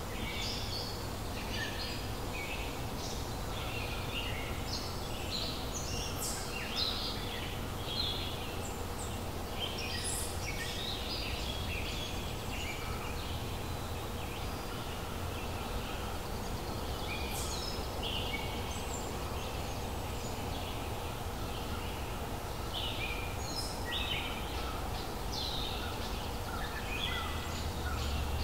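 Wild birds calling and singing in a forest, many short chirps and trills, some rising or falling, overlapping throughout, over a steady low background noise.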